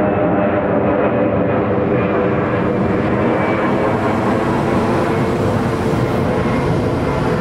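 DB Class 442 Talent 2 electric multiple unit approaching and passing beneath, its electric traction drive giving several steady tones over a dense rumble of wheels and air that grows brighter as it nears.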